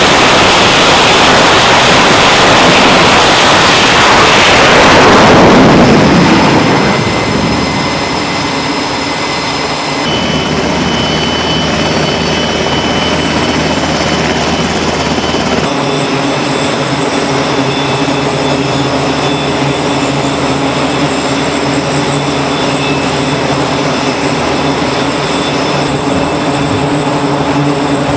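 Carrier jet at full power launching off the catapult, its roar building and then falling away about six seconds in. After that, a Navy Seahawk helicopter's turbines and rotor run steadily.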